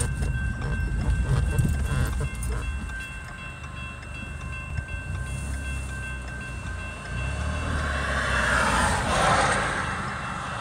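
Railroad crossing warning bell ringing in a steady repeated tone as the crossing gates come down, over a low rumble. A broad rushing sound swells up about eight seconds in as the train approaches the crossing.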